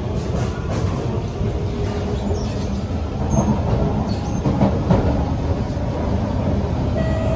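Kawasaki–Kinki Sharyo C151 MRT train running, heard from inside the carriage: a steady low rumble of wheels on rail with a few knocks partway through. Steady whining tones come in near the end.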